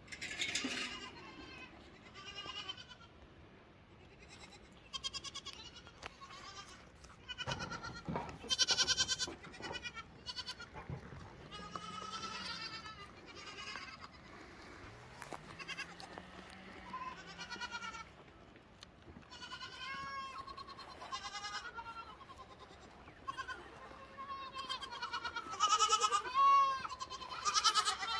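Young goat kids bleating: short, wavering calls repeated off and on, coming thicker and loudest near the end.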